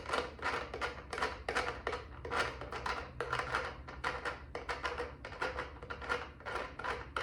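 A cat tree part being twisted by hand onto its threaded screw during assembly, rubbing against the board in a quick, uneven run of scratchy strokes, about three or four a second.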